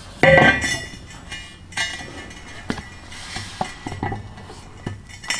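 Steel pipe pieces clanking together as they are handled and fitted at a coped joint. A loud ringing clank comes just after the start and another about two seconds in, followed by several lighter metal knocks.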